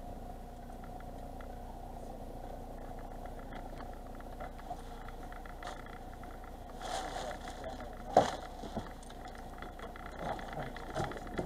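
Boat engine running steadily, with a sharp knock on board about eight seconds in and light clattering of gear near the end.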